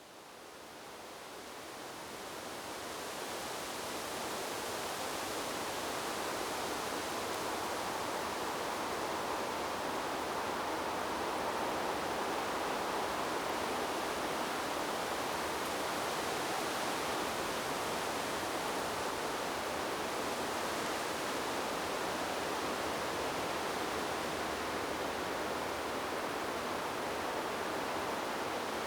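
Wind blowing through tree leaves, a steady rustling noise that fades in over the first few seconds and then holds level.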